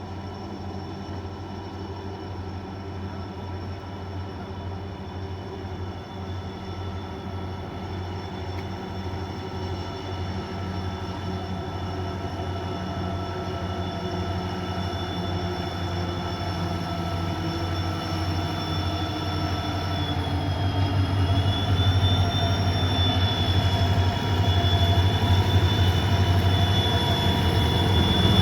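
Freight train locomotive approaching, its steady low hum and high whine growing louder.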